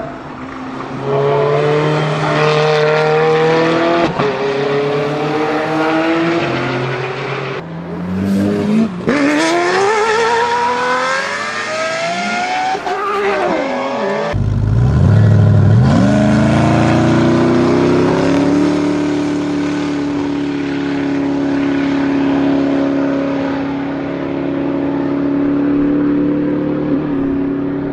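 High-performance car engines revving hard, cut together from several clips. The pitch climbs and drops back at each gear change, and after about halfway a deep engine note climbs and then holds steady.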